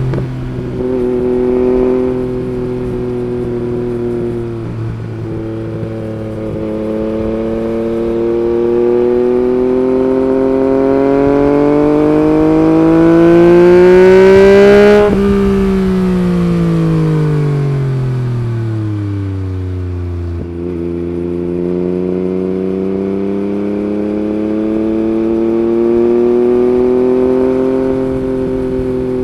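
Yamaha MT-09's 890 cc inline three-cylinder engine through an Akrapovič Racing Line carbon exhaust, heard while riding. The engine holds a steady note, then climbs smoothly under throttle to its loudest about halfway through. After that it falls away as the throttle closes and settles back to a steady cruise.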